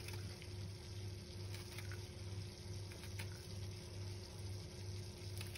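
A few faint snips of kitchen scissors cutting a red chili pepper into rings, over a steady low hum that pulses about two and a half times a second.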